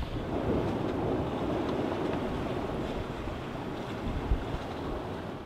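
Sailboat under way at sea: a steady rush of wind and water, with wind buffeting the microphone, easing a little toward the end. A single brief knock about four seconds in.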